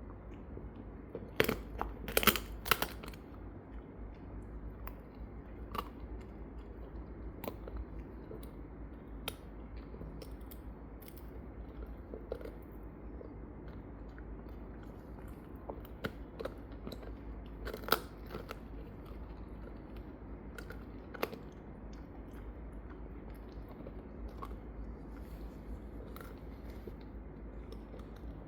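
A Shiba Inu gnawing on a bone: scattered sharp crunches and bites, with a cluster of loud crunches near the start and another strong one past the middle, over a steady low hum.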